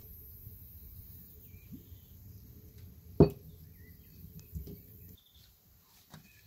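A sharp knock on a hard surface about three seconds in and a softer thump a second later, over a low steady outdoor rumble with faint bird chirps; the rumble cuts off near the end.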